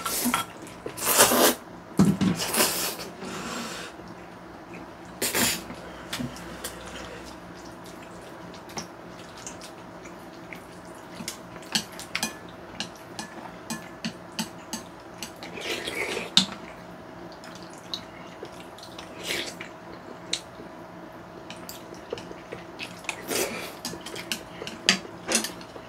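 Eating sounds: noodles slurped, chewing, and chopsticks and a spoon clicking against bowls, in scattered short sounds with the loudest in the first few seconds, over a faint steady hum.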